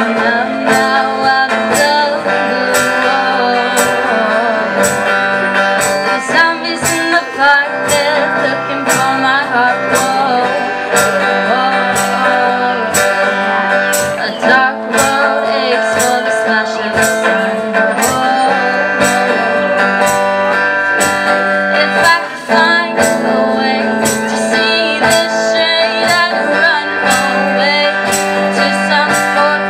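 A band playing a song: guitars strumming under a steady beat of about two strokes a second, with sustained chords.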